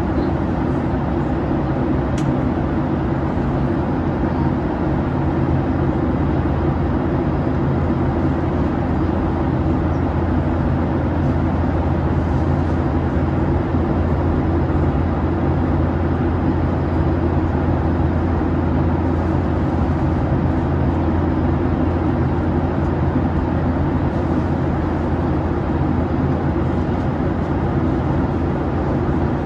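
Steady cabin noise inside a Boeing 737-800: a continuous rush of air with a deep, unchanging drone from its CFM56 turbofan engines.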